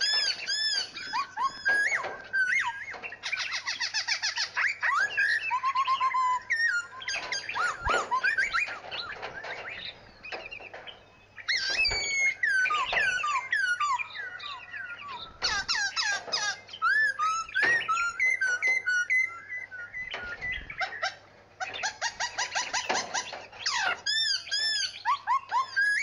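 Several songbirds singing and chirping at once: overlapping whistled notes that glide up and down, mixed with fast runs of chirps, in dense spells with short lulls.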